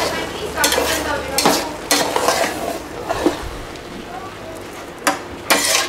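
Plastic spatula stirring and scraping parboiled (sella) rice in a metal rice-cooker pot, in irregular strokes with a quieter lull in the middle.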